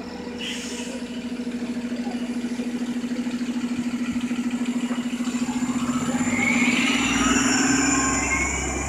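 2007 Orion VII hybrid bus with a Cummins ISB diesel and BAE Systems HybriDrive pulling away from a stop: the diesel runs with a steady pulsing hum. About five seconds in, a rising electric whine from the hybrid drive joins it, and the bus grows louder as it accelerates.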